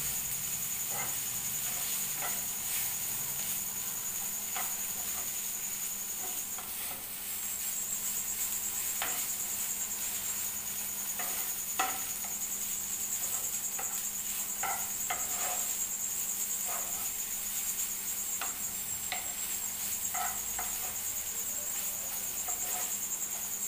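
Spatula stirring and scraping thick poha (flattened rice) around a nonstick frying pan, in short irregular scrapes. A steady high-pitched insect-like chirring and a faint low hum run underneath.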